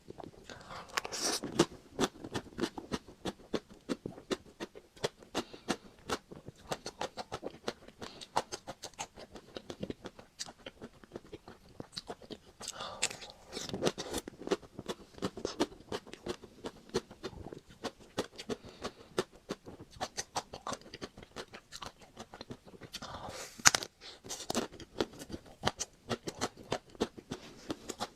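Close-miked eating of a Magnum chocolate-coated ice cream bar: biting through the crisp chocolate shell and chewing, with many short crackles and clicks. Louder crunching comes about a second in, again near the middle, and once more near the end.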